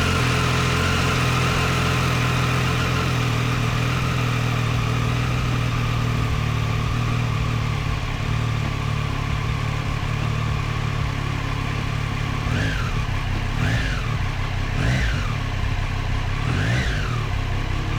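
2018 Triumph Street Triple's inline-three engine, running through a Racefit Growler X slip-on exhaust, idling steadily just after starting. In the last third the throttle is blipped about five times, each a quick rise and fall in revs.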